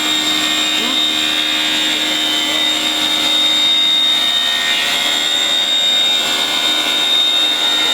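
Glass CNC machining center running, a steady high-pitched whine over a constant mechanical hum.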